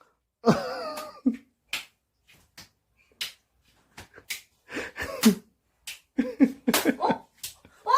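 Sticky stress-relief toy slapped repeatedly, giving irregular short sticky smacks, with brief voice sounds between them.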